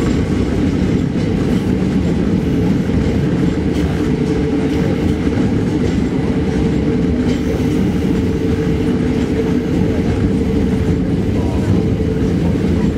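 Hakone Tozan Railway electric train running uphill, heard from inside the passenger car: a loud, steady rumble of wheels on rail with a steady motor hum.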